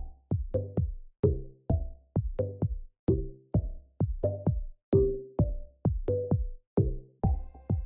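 Background electronic music with a steady beat and short, quickly fading pitched notes over a bass line.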